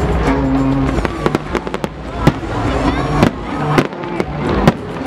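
Fireworks display: rapid, irregular sharp bangs and crackling bursts, several a second. Underneath runs a low pitched sound, each tone held for about half a second and coming back roughly once a second.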